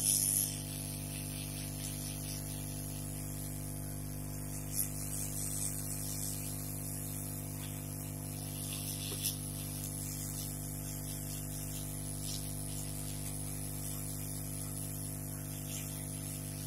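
Hot air rework gun blowing steadily onto a router circuit board to dry cleaning thinner, a continuous hiss over a low electrical hum. A brief louder hiss right at the start, and a couple of faint clicks.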